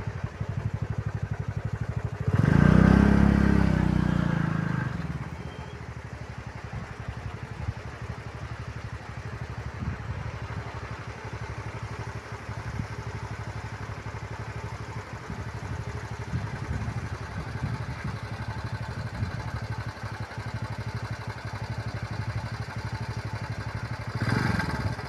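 A motor vehicle's engine running steadily with a fast, even low pulse, with a loud low rumble swelling about two and a half seconds in and fading over the next two seconds.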